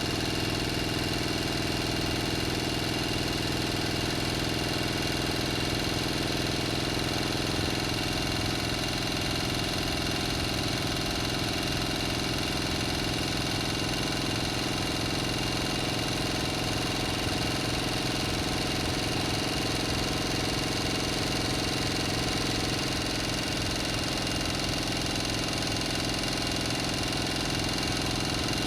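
Engine running steadily at idle, its pitch and level unchanging throughout.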